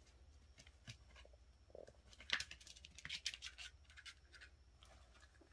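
Faint scratching and clicking of a kitten's and a dog's claws on a laminate floor and a quilted mat as they play, with a quick flurry of scratches in the middle.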